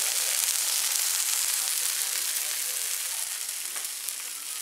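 Colombian arepas frying on a hot electric griddle: a steady sizzle that slowly eases off toward the end.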